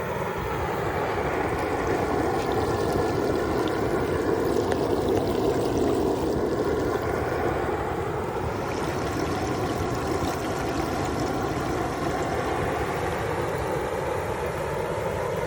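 Whole turkey deep-frying in hot oil: the oil boiling and bubbling around the bird with a steady rushing sound.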